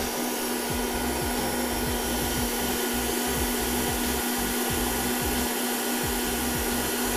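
Electric stand mixer running steadily at high speed, whisking eggs and sugar until they thicken and rise in volume for a cake batter. It makes an even motor whir with a constant hum.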